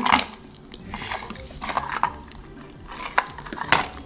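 A Furby toy being cut open: a string of irregular snips and clicks as the blade works through it.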